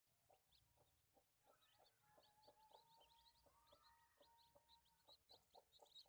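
Faint, rapid high peeping of newly hatched chicks, with a hen's low clucks repeating a few times a second beneath it.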